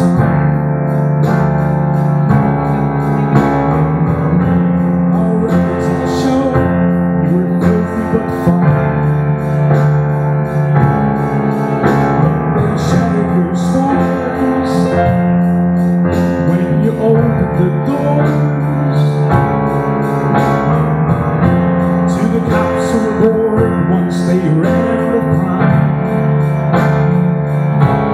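A live band playing an instrumental passage: Yamaha Arius digital piano chords over electric bass guitar, with a steady beat.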